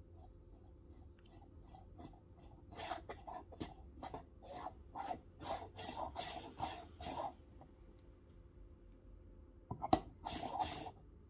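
Ground coffee being stirred in an espresso portafilter basket through a dosing funnel with a small distribution tool: a rhythmic scratchy rasping about twice a second, then a sharp click and a short scrape near the end.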